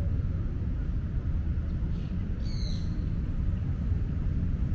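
Tabby cat purring steadily while her head is stroked. A bird chirps once, briefly, about two and a half seconds in.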